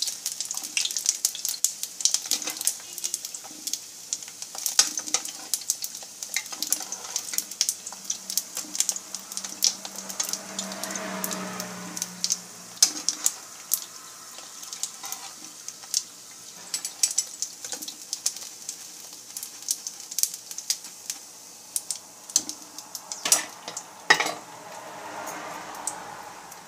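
Macaroni deep-frying in hot oil, sizzling with a high hiss that fades as the pieces are lifted out, while a metal ladle clinks and scrapes against the pan and a wire-mesh strainer.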